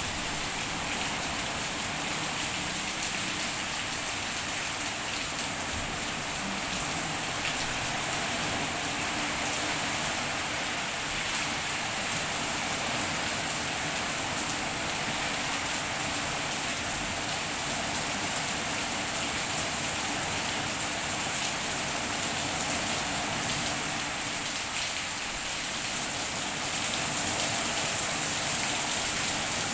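Heavy rain falling steadily, an even hiss that grows a little louder near the end.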